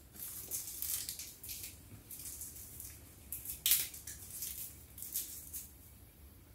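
Packaging of a small accessory (a converter) being handled and opened, rustling and crinkling in short bursts, with one sharper crackle a little past halfway.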